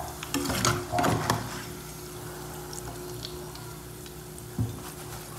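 Metal skimmer clinking and scraping against a pot and a glass bowl as fried potato strips are scooped out of the oil and tipped into the bowl. There is a quick run of clatters about half a second to a second in, then a single knock near the end.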